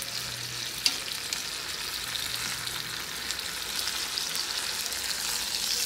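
Stuffed chicken breasts sizzling in hot oil in a cast iron skillet after being turned over, with a steady high hiss and one sharp tap about a second in.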